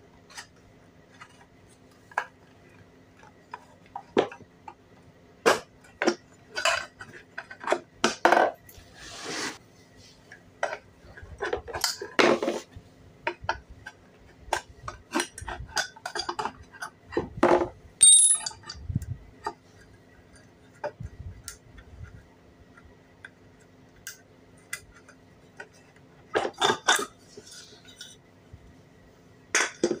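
Irregular metal clinks, taps and scrapes from a screwdriver and metal parts as a ceiling fan motor's screws are undone and its cover is taken off.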